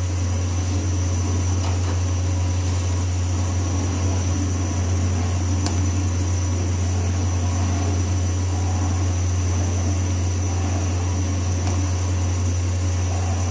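Soup boiling in an aluminium pot while a steel spoon stirs it, over a steady low hum and hiss.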